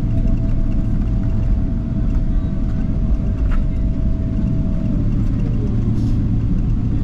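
Cabin noise of a Boeing 777-300ER rolling along the runway just after landing: a loud, steady low rumble from the engines and wheels. A thin steady tone runs underneath and stops about five seconds in.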